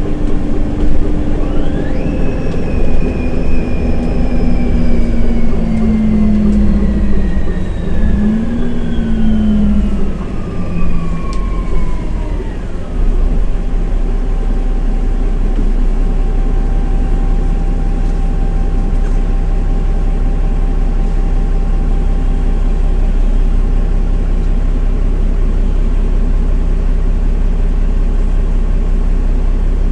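Solaris Urbino 15 city bus slowing: a drivetrain whine falls steadily in pitch for about ten seconds while the engine note dips and rises. From about thirteen seconds in, the bus stands with its engine idling steadily.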